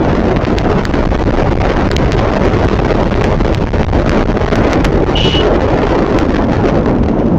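Wind rushing over the microphone of a moving motorcycle, a steady roar with the bike's engine and road noise beneath it. A brief high beep sounds about five seconds in.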